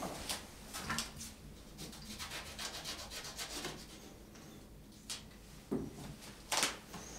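Kitchen knife sawing through a mandarin's peel in a run of quick short scraping strokes, followed by a few light knocks near the end.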